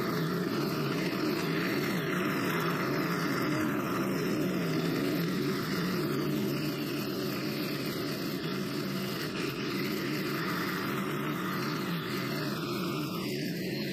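Stihl FS90R string trimmer's four-stroke 4-MIX engine running steadily under load as its nylon line cuts grass, with a low, slightly wavering drone.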